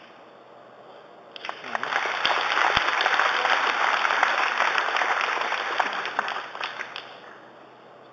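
Snooker audience applauding, starting about a second in and dying away after about six seconds with a few last separate claps.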